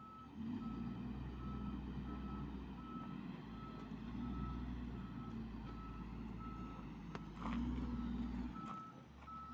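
Diesel engine of a heavy construction machine running, with its reversing alarm beeping steadily about twice a second. The engine gets louder for about a second near the end.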